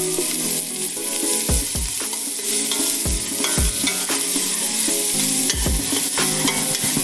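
Chopped shallots and garlic sizzling as they fry in a stainless steel pot, stirred with a spatula. A low, regular beat of background music runs underneath.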